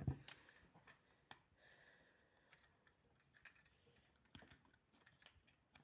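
Faint, scattered plastic clicks from a fidget puzzle ball being twisted and rearranged by hand, a handful of separate clicks at irregular intervals over near silence.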